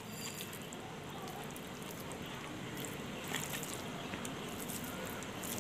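Faint, soft handling of wet sodium polyacrylate gel crystals (the 'instant ice' from diaper powder and water) as a hand scoops them in a steel bowl, with a few small clicks about three and a half seconds in.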